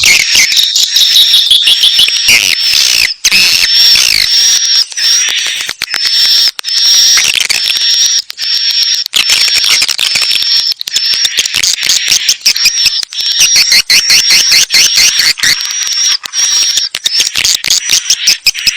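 Recorded swiftlet calls: dense, loud, high-pitched chirping and twittering repeated rapidly without a break, a lure sound played to attract swiftlets into a nesting building.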